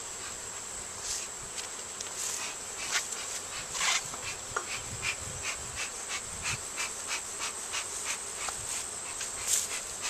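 Honeybees buzzing around an open hive, with scattered short clicks and knocks throughout.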